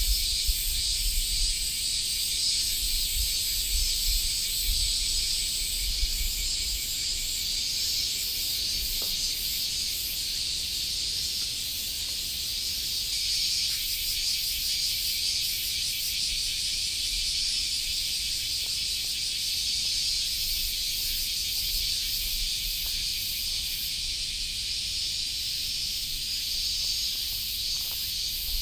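A steady chorus of insects shrilling, a high hiss with a fast pulsing trill on top. A low rumble on the microphone comes in the first six seconds and again near the end.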